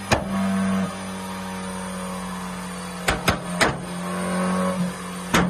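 BMW Z4 20i's turbocharged four-cylinder running on a chassis dyno through a valved cat-back exhaust with catless downpipes, its drone holding a steady pitch. Sharp exhaust pops cut through it: one at the start, three in quick succession about three seconds in, and one more near the end.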